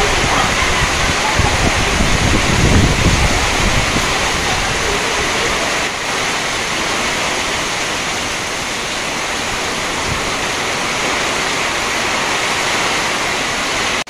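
Heavy rain: a steady, loud hiss of a downpour on trees and ground, with runoff streaming off the roof eave. Gusts of wind buffet the microphone with a low rumble in the first few seconds.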